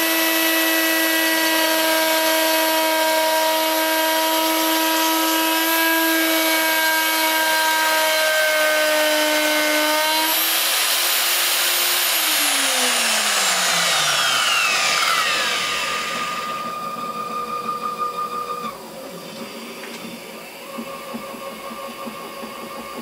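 Router motor spinning as the spindle of a homemade CNC mill, running with a steady high whine while the bit cuts into a pine board. About twelve seconds in it is switched off and the whine falls as it spins down. After that a fainter steady high tone breaks off and comes back.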